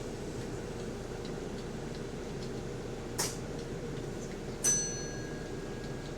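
Steady low drone inside a bus. About three seconds in there is a short click, and then a single bell-like ding with ringing overtones that fades over about a second.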